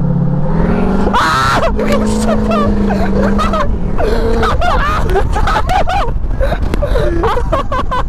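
Pickup truck driving, heard from the open bed: steady wind and road rumble, with the engine note rising about a second in. Voices call out over it.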